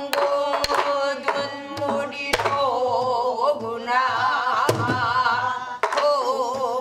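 A woman singing in pansori style, a slow danga with a wavering, heavily shaken voice, accompanying herself with sparse, irregular stick strokes on a buk barrel drum.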